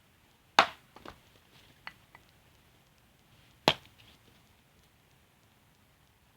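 Axe chopping dry firewood: two sharp blows about three seconds apart, the first followed by a few lighter knocks.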